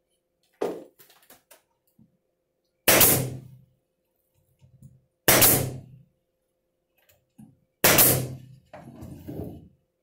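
Wooden birdhouse parts being handled and set down on a hard surface: four sharp wooden knocks about two and a half seconds apart, with lighter clicks and shuffling between them.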